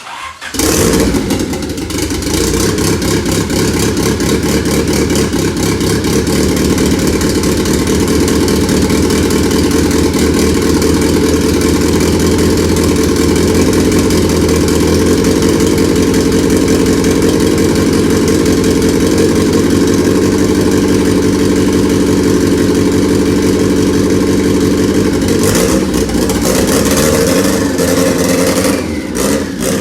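Honda car engine starting about half a second in and then running steadily and loud, with an even pulsing beat; it eases off near the end.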